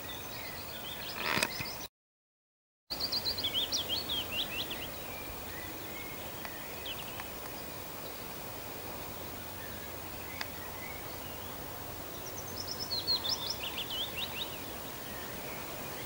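Wild songbirds singing outdoors over a steady background hiss: two bursts of quick, high chirping phrases, one just after the start and one near the end. A short rustle comes just before a one-second dropout to silence about two seconds in.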